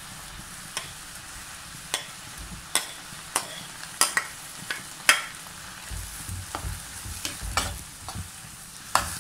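A spatula clicking and tapping against a plate and a nonstick pan as cooked mung beans are scraped into hot jaggery syrup and stirred, over a steady sizzle. The sharp clicks come about once a second, with duller low knocks toward the end as the stirring starts.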